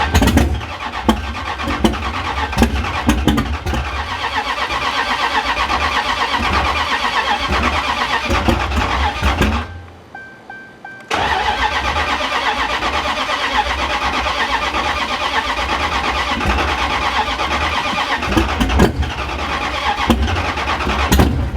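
Dodge Scat Pack's 392 Hemi V8, fitted with a new stage 6 cam, cranking over on the starter for about ten seconds, stopping, then cranking again for another ten seconds on its first start attempt after the tune load, without clearly catching.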